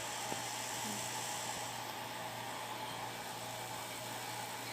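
Steady whirring of a small electric motor and fan blowing air, a continuous even hiss with a low hum underneath.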